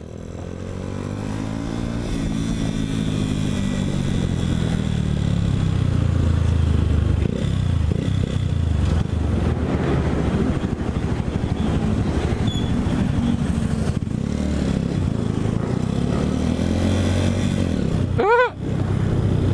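Motorcycle engine running under way in traffic, heard from a helmet-mounted camera with wind rushing over the microphone; the engine note rises and falls with the throttle. The sound fades in over the first couple of seconds.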